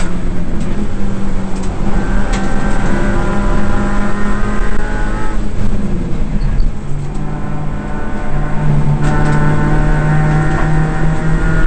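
Suzuki Swift race car's four-cylinder engine at racing speed, heard from inside the cabin. It runs hard at a steady pitch, the revs drop and the note breaks up about halfway through, and then it pulls steadily again at a lower pitch.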